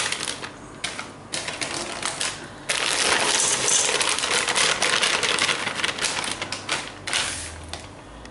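Quorn mince pieces shaken out of a plastic packet, pattering and rattling into a pressure cooker's inner pot while the bag crinkles: a dense run of small clicks with short pauses in the first few seconds, then a near-continuous clatter that thins out near the end.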